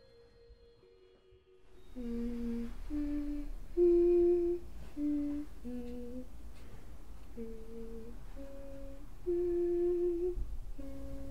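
A slow, simple tune hummed in a woman's voice, one held note after another with short gaps. It starts about two seconds in, after a steady tone fades out.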